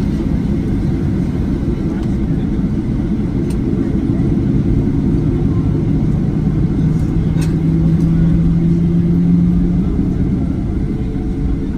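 Boeing 737-800 jet airliner giving a steady low rumble, with a hum that rises slightly in pitch from about five seconds in and stops near ten seconds.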